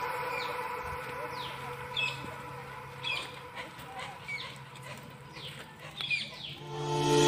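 Birds calling: short, sharp chirps that slide downward in pitch, repeated about once or twice a second. Background music fades out at the start and comes back in near the end.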